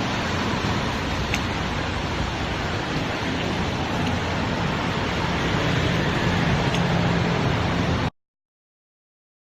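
Mercedes-Benz W205 C-Class windscreen wipers with new silicone blade strips sweeping over glass wet with washer spray, heard as a steady hiss with no chatter or squeak. It cuts off suddenly about eight seconds in.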